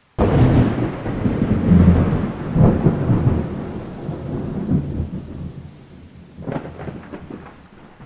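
Thunder: a sudden loud clap that rolls into a long rumble and slowly fades, then a second crack about six and a half seconds in.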